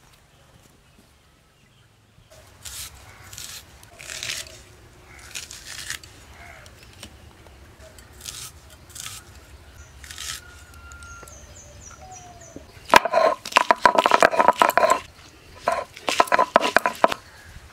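Garlic being peeled by hand against a boti blade, with soft intermittent scrapes and crackles of papery skin. About thirteen seconds in, a stone roller starts crushing garlic cloves on a flat grinding stone (sil-batta): loud, rapid, rough stone-on-stone grinding strokes that make up the loudest part.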